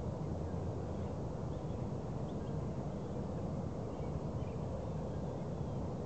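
Steady low outdoor rumble, with faint short bird chirps scattered through it.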